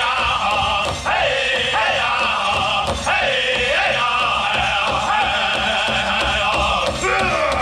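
Powwow drum group singing a chicken dance song: several men singing in high-pitched, sliding voices over a steady beat struck together on a large hand drum.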